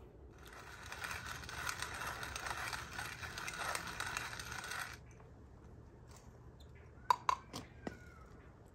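Metal hand pepper mill grinding peppercorns, a dense gritty grinding noise for about five seconds that then stops. A few sharp metallic clinks follow near the end.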